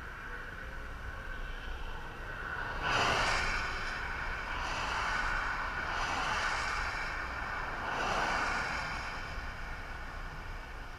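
Cars passing at highway speed on an interstate, their tyre and road noise swelling and fading about four times, the first pass the loudest, over a steady low rumble.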